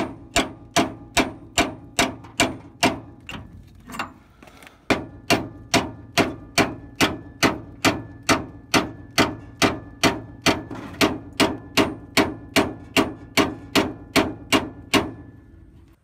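Repeated hammer blows on a steel drift punch, driving the top center-pin bushing out of a VW bus front axle beam. Sharp metallic strikes come about two and a half times a second, each with a brief ring. The strikes pause briefly about four seconds in, then resume and stop near the end as the bushing comes out.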